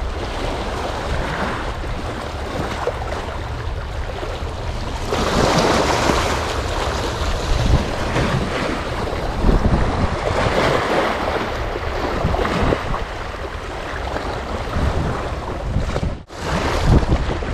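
Wind buffeting the microphone over the wash of sea waves, a steady gusty rush with a heavy low rumble. The sound cuts out for a moment near the end.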